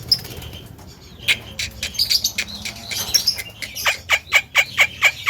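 Javan myna giving a run of short, harsh clicking notes. They start about a second in and settle into a steady, rapid series of about four to five a second in the second half.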